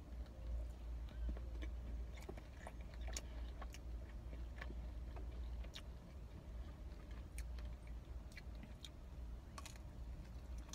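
A person chewing a mouthful of pizza, with small wet mouth clicks scattered irregularly, over a steady low hum.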